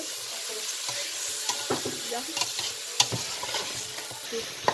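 Chopped vegetables sizzling in oil in a stainless steel pot while a slotted metal spatula stirs them, scraping and clicking against the pot. The sharpest knocks come about three seconds in and again near the end.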